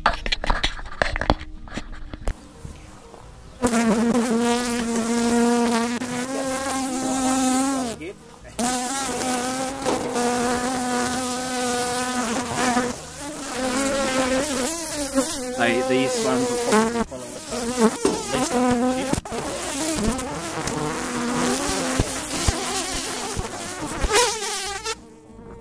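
Honeybees buzzing right at the microphone, a loud droning hum that wavers in pitch as they circle and dart, with a few brief breaks: defensive bees attacking at close range. The first few seconds hold only scattered knocks and rustling before the buzzing starts.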